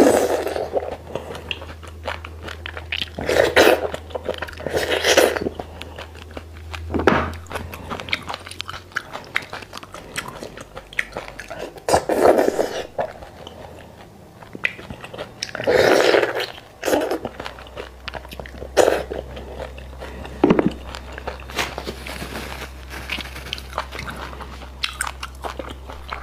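Close-miked eating sounds of beef bone marrow being sucked out of sauce-coated bone sections: wet chewing and lip smacks, with several louder sucking slurps.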